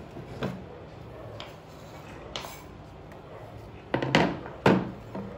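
Kitchen knife and plastic cutting board handled on a table: a few light taps, then three sharp knocks close together near the end.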